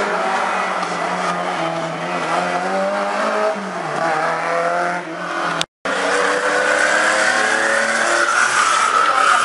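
Rally car engine running hard, its pitch dropping briefly about three and a half seconds in and then climbing again, with tyre squeal in the second half. The sound cuts out for an instant a little past halfway.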